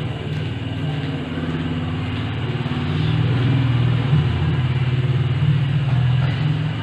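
A motor vehicle engine running, a steady low hum that grows louder about three seconds in.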